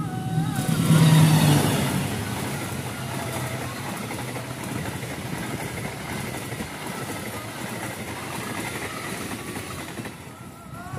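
A diesel-electric locomotive passes close at speed. Its engine is loudest about a second in, then comes a steady rushing rumble of the passenger coaches' wheels on the rails, which eases off near the end.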